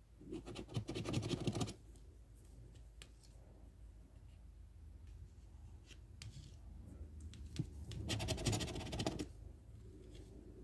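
A metal scratcher coin scraping the coating off a lottery scratch-off ticket in two bursts of rapid strokes, the first just after the start and the second about eight seconds in, with a few light taps between.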